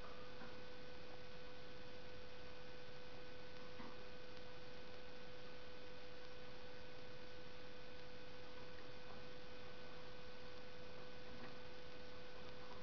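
Steady electrical hum, one constant tone with fainter higher tones over even hiss, with a few faint soft ticks now and then.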